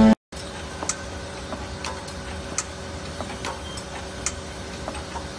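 Automatic burger patty forming machine running: a steady mechanical hum with sharp ticking clicks, about two a second and unevenly spaced.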